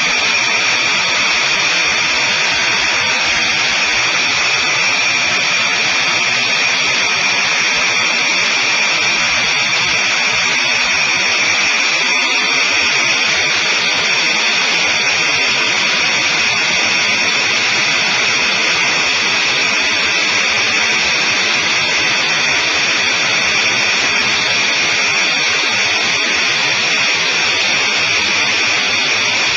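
Sonerai I's engine and propeller running at full power on the takeoff roll: a loud, steady drone with a high whine through it.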